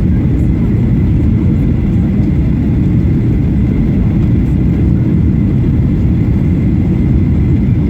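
Steady low rumble of a Boeing 737-800 airliner heard from inside the cabin, with a faint steady high whine.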